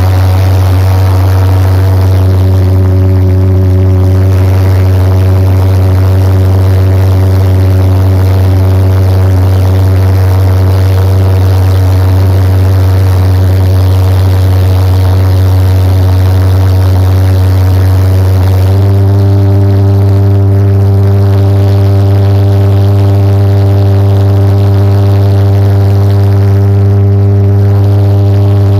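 Jet-type engine running with a loud, steady buzzing drone whose tone shifts slightly about nineteen seconds in.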